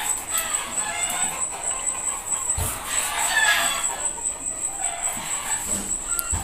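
Chickens clucking in the background, with a couple of dull knife thuds on a cutting board as a fish is cut up, about two and a half seconds in and near the end.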